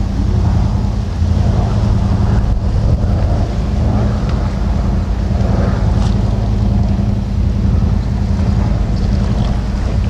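Dive boat's engine running steadily under way, a constant low hum, with wind on the microphone.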